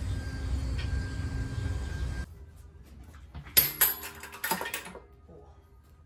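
A steady low rumble cuts off abruptly about two seconds in. Then comes a quick cluster of sharp metal clanks with a ringing tail, like steel parts knocking together.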